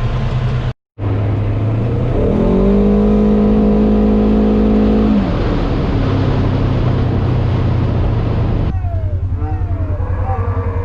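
Vehicle engine running, with a brief cut about a second in. About two seconds in it revs up and holds a higher steady note for roughly three seconds, then settles back. Near the end the sound turns to a pulsing beat with short sliding squeaks over it.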